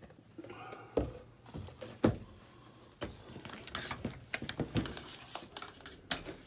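Wire potato masher working cream into mashed potatoes in a stainless steel saucepan: irregular squelching with sharp knocks, starting about a second in.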